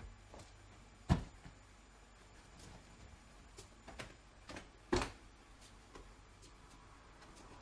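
Scattered knocks and light rustles, with two louder thumps about a second in and about five seconds in, as a barn owl pounces on and grabs at towels.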